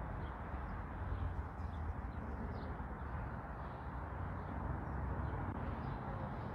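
Steady outdoor background noise with a low rumble, and faint, scattered high bird chirps.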